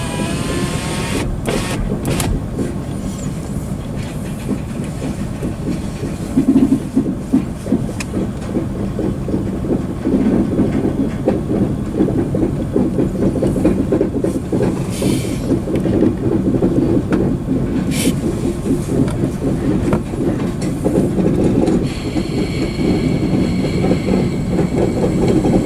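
Covered hopper cars of a freight train rolling past, a steady rumble of steel wheels on the rails with occasional sharp clanks. A steady high-pitched squeal joins in near the end.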